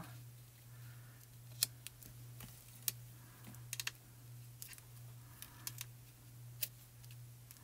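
Faint, scattered clicks and light taps of cardstock and a thin die-cut card piece being handled and set down on a craft mat, over a steady low hum.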